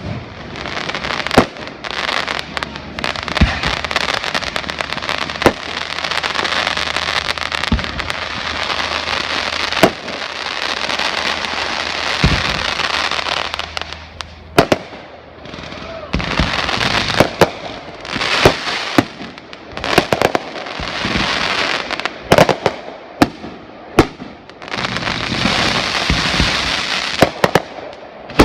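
Fireworks display: a run of sharp bangs from bursting shells, with long stretches of dense crackling between them.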